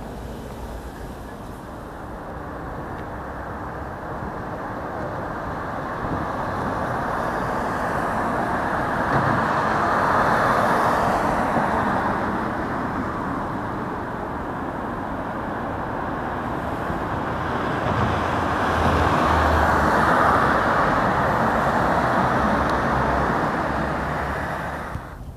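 Road traffic noise: a steady rush of passing cars, swelling as vehicles go by, loudest about ten seconds in and again around twenty seconds in.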